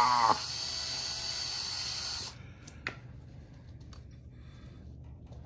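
Electric drill turning a left-handed drill bit slowly into a broken bolt, a steady high-pitched whine and hiss that cuts off suddenly about two seconds in. A few light clicks follow.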